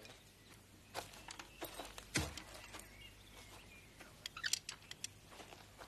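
Faint, irregular knocks and clicks, the loudest a dull thump about two seconds in and a quick cluster of clicks near four and a half seconds, over a light hiss.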